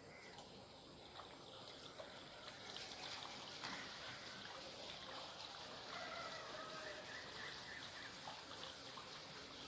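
Faint background ambience: a steady hiss, with a few faint chirping bird calls about six to seven seconds in.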